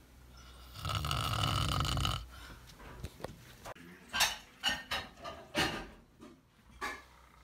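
A sleeping man snoring: one long, loud snore lasting about a second and a half, followed by a string of short, sharp sounds near the end.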